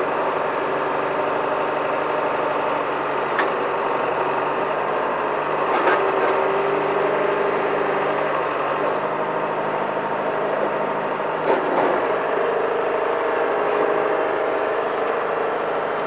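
John Deere 410 backhoe's engine running steadily under hydraulic load as the boom and bucket are worked, its note shifting as the load changes. A few sharp knocks stand out over the drone.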